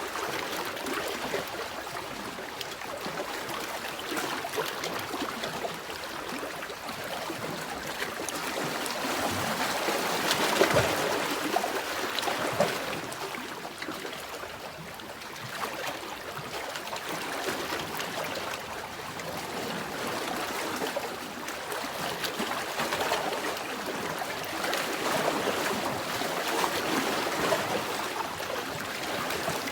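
Waves washing in and running back, a steady noisy wash that swells and eases slowly, with its loudest surges about a third of the way in and again towards the end.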